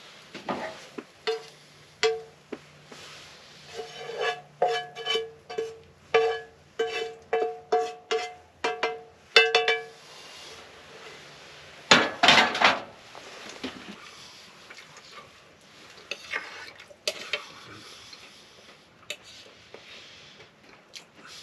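Frying pan tapped repeatedly with a metal utensil, each tap ringing at the same pitch, about two a second for several seconds as food is knocked out onto a plate. About twelve seconds in comes a louder scrape of about a second, then a few light clinks of cutlery on the plate.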